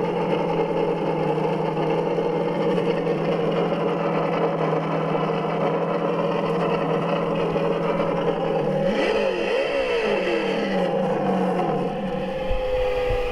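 Engine-sound system on a Traxxas Slash 4x4 Ultimate RC truck playing a bassy simulated engine through its speaker. It holds a steady idle, revs up and down a couple of times about nine seconds in, and its pitch falls near the end.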